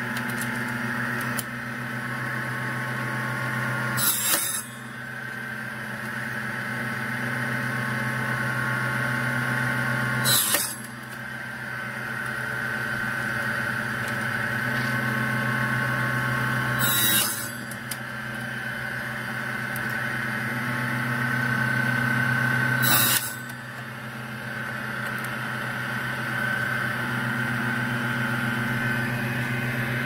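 Proxxon mini table saw running with a steady motor hum, cutting through wooden popsicle craft sticks four times, about six seconds apart, each cut brief and sharp.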